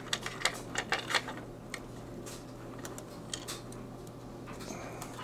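Light clicks and rattles of test leads with clip ends being handled on a workbench, thickest in the first two seconds, over a steady low hum.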